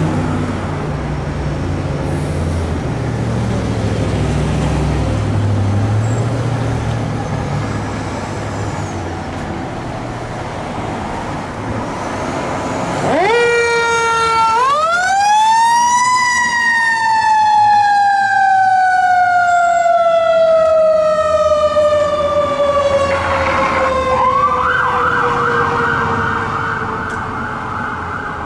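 Fire engine (Seagrave Marauder II) pulling out, its diesel engine running. About halfway through, a mechanical siren winds up over a couple of seconds and then slowly winds down. Near the end an electronic siren starts a fast yelp.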